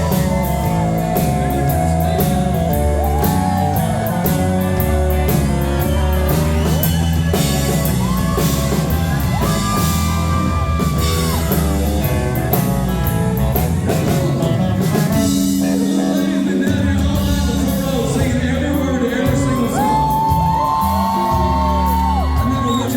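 Live country-rock band playing loud: drums and bass under sustained, bending lead lines, with some singing and shouts heard through the hall.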